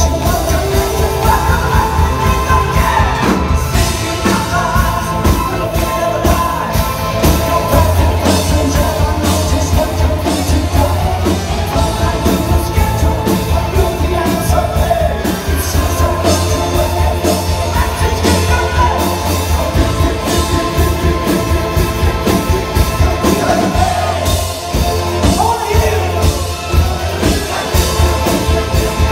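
Live rock band playing: lead singing over electric guitar and bass guitar, recorded through a mobile phone's microphone in the audience.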